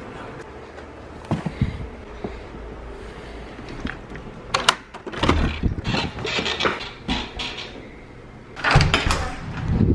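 Handheld camera being carried through a house: handling noise and footsteps with scattered knocks and thuds, the loudest near the end.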